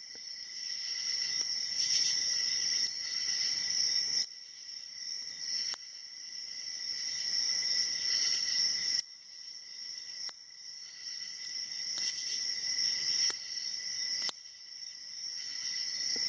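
A steady, high-pitched insect chorus of crickets, with a sharp click every second or two from the pick and pins of an Abus 72/40 padlock being picked with a hook pick and tension wrench.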